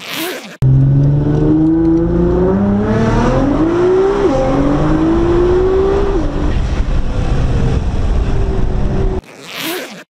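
Nissan GT-R's twin-turbo V6 accelerating hard through the gears, heard from inside the cabin: the engine note climbs, drops at an upshift about four seconds in, climbs again and drops at another shift about six seconds in. A short whooshing sweep at the start and again near the end.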